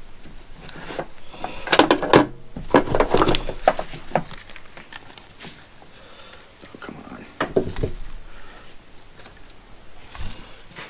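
Ratchet straps being handled and packed into their storage bag: clicks and rattles of the metal ratchet hardware and rustling, in short spells about two seconds in, around seven and a half seconds, and near the end.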